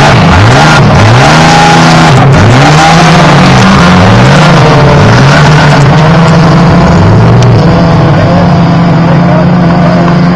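Off-road race vehicle's engine revving up and down about once a second, then holding a steady high rev through the second half.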